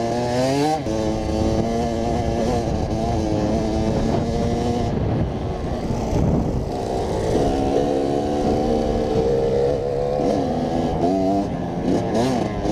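Kawasaki KX100's two-stroke engine running under way, its pitch repeatedly climbing and dropping back as the throttle is opened and eased off. A rough rushing noise briefly covers the engine note about six seconds in.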